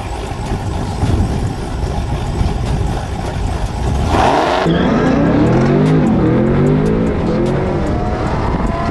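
A car engine idling and revving at the drag strip's start line, from a white Cadillac CTS-V's V8. After about four and a half seconds, a car accelerates hard down the strip, heard from on board: the engine pitch climbs and then drops at each gear change, several times over.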